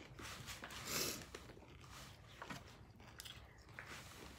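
A person chewing a crunchy tostada, faint and irregular, with one louder crunch about a second in.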